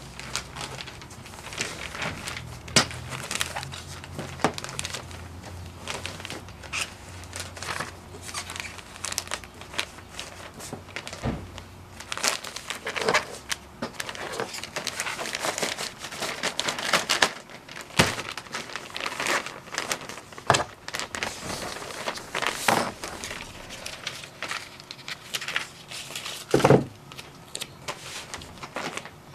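Black plastic poly mailers crinkling and paper sheets rustling as folded sweatshirts are handled and packed into them, in irregular crinkles and rustles with a few sharper crackles.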